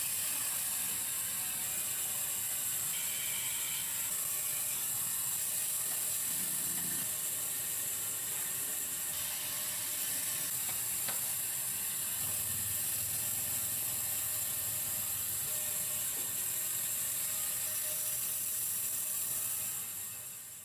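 Band saw running, its blade cutting through a wooden handle blank: a steady mechanical noise with a strong high hiss, fading out near the end.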